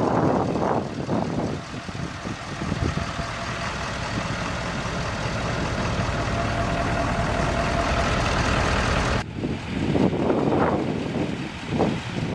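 A 2011 Ford F-250 Super Duty's 6.7-litre Power Stroke turbo-diesel V8 running steadily at the exhaust tips, with rough wind or handling rumble at the start and again after a sudden cut about nine seconds in.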